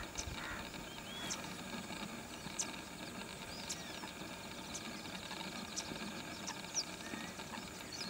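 Faint, short high-pitched bird chirps about once a second over a steady low outdoor background at the water's edge.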